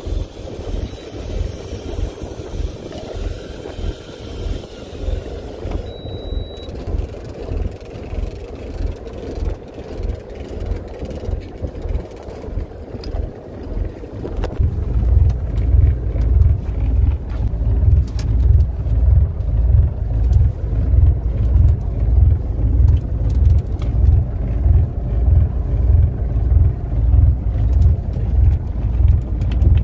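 Fishing boat rumbling low, in a steady throb of about one and a half pulses a second that grows louder about halfway through.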